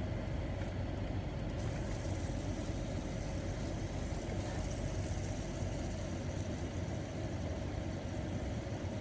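Steady low hum of a car's running engine, heard inside the cabin.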